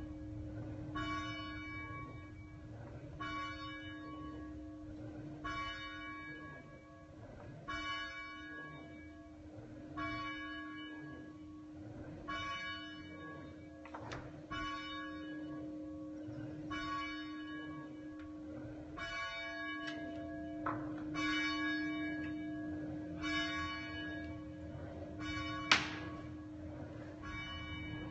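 A single church bell tolling steadily, one stroke about every two seconds, each stroke's ringing overtones fading over a lingering hum. A sharp knock near the end is the loudest moment, with fainter knocks about halfway through.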